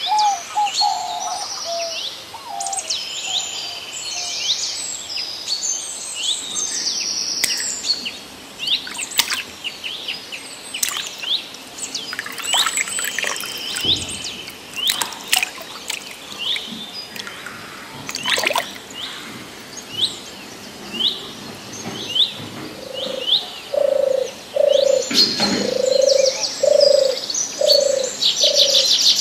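Several wild birds chirping and calling, with many short, high chirps and trills. Near the end, a lower call is repeated about eight times at an even pace.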